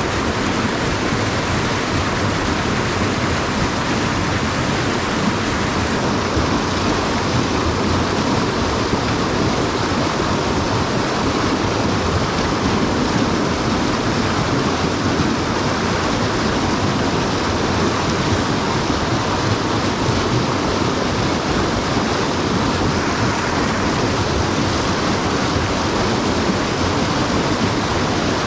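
Mountain stream water rushing steadily, an even unbroken noise.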